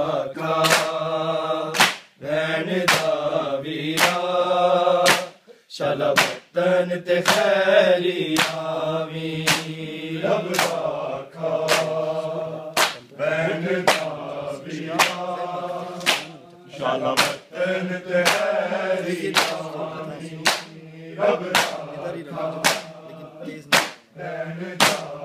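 Men chanting a mourning chant together, with a steady beat of open-hand slaps on bare chests (matam), roughly one a second. The chant and beating drop briefly about five seconds in.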